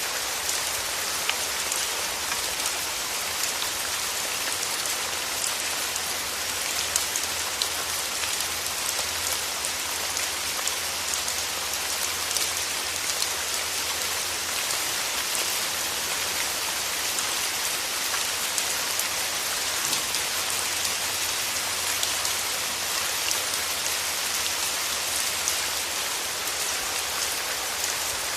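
Steady rain falling and pattering on a surface, with many individual drop ticks.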